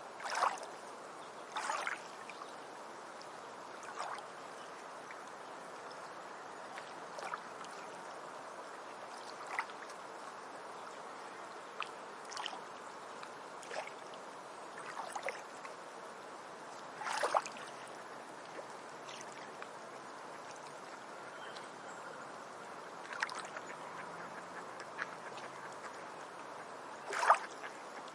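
Beach ambience: a steady wash of water with small waves lapping and splashing at irregular intervals, every second or few, the loudest near the end.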